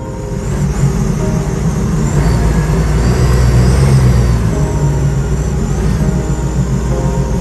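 A mini jet boat's engine running under way, with water and wind rushing past, growing louder over the first few seconds as the boat picks up speed.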